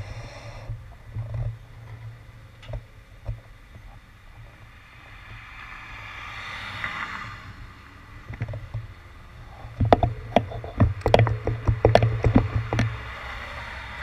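Road traffic: passing cars' tyre noise swells and fades about halfway through and builds again near the end as a car passes close. A rapid run of irregular knocks and rattles comes shortly before the end.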